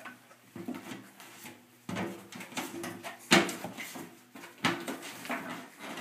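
Parts of an old wringer washing machine being handled and moved: a few separate knocks and clunks with rubbing in between, the loudest knock about three seconds in.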